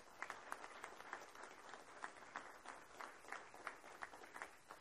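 Applause from a small audience in a meeting room: many individual hand claps heard distinctly.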